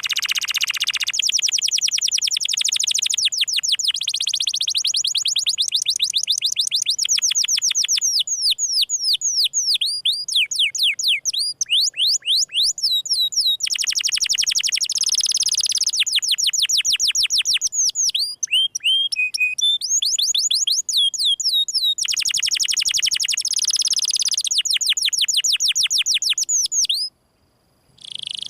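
Domestic canary singing long, fast trills of repeated high sweeping notes, the 'gesekan' rolls prized by songbird keepers. The bird switches to a different note pattern every few seconds and breaks off briefly near the end.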